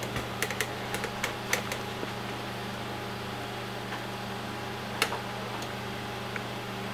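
Steady low hum of the MendelMax 3D printer's fans, left running with the printer idle after the print has finished. A few light clicks come in the first two seconds, and one more about five seconds in.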